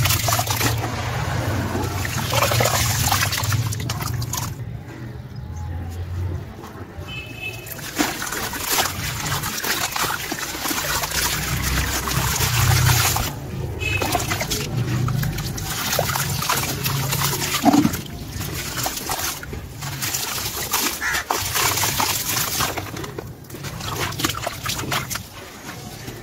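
Wet sand-cement chunks squeezed and dipped by hand in a tub of muddy water: water sloshing and trickling, with gritty crackling as the soaked chunks crumble. It goes quieter for a few seconds about five seconds in.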